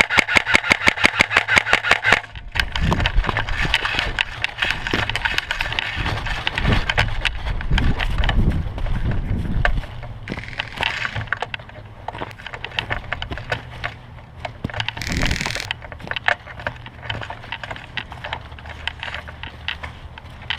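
An airsoft electric rifle (AEG) fires a full-auto burst of about ten shots a second, stopping about two seconds in. After it come rustling, knocks and scattered clicks of movement and handling.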